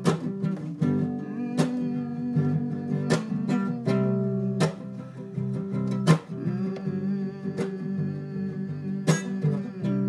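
Acoustic guitar being strummed, its chords ringing on between strokes, with a sharp accented strum about every one and a half seconds.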